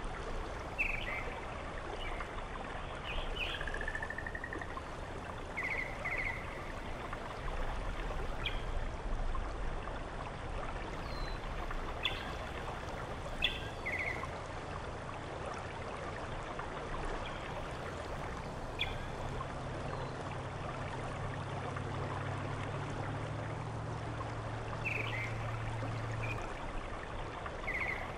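Steady rush of a stream, with a few short high bird chirps scattered through it and a low steady hum for several seconds in the second half.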